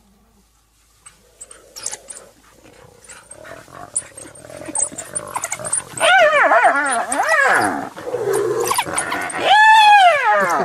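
African wild dogs and a spotted hyena squabbling over a kill. Short scuffling noises come first, then from about six seconds in loud, high-pitched squealing calls that rise and fall, several in quick succession and one longer call near the end.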